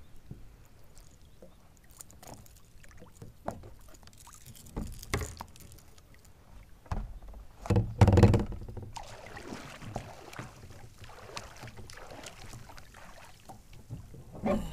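Water lapping against a plastic kayak hull, with scattered light knocks of the paddle and the angler's body against the hull. A loud thump about eight seconds in is followed by a couple of seconds of sloshing.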